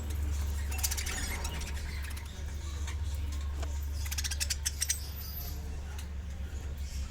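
Budgies and lovebirds chattering and scrabbling, in two short bursts of rapid high chirps and clicks about one second and four seconds in, over a steady low hum.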